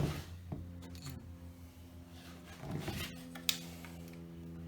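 Tight plastic wiring connectors being wiggled and tugged out of a door switch panel: rubbing and scraping of plastic, with a sharp click at the start and another about three and a half seconds in, over a steady low hum.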